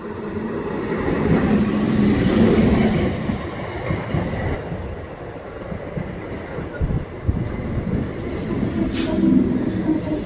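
Nine-coach EMU local electric train running past close by. Its low rumble builds to its loudest in the first few seconds, then goes on as an uneven clatter of wheels over the rails, with brief high wheel squeals and a sharp click in the last few seconds.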